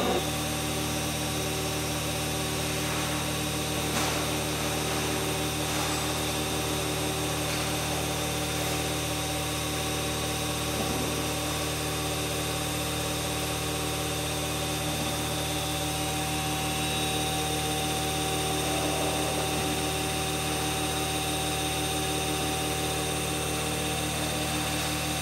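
Hydraulic power unit's motor-driven pump running steadily, a constant hum with a high whine over it.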